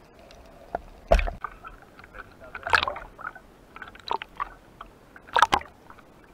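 Sea water sloshing and splashing over a camera held at the surface in choppy waves, in a few irregular bursts.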